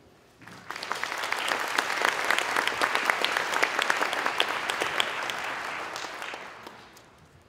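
Audience applauding. The clapping starts about half a second in, swells, and fades away near the end.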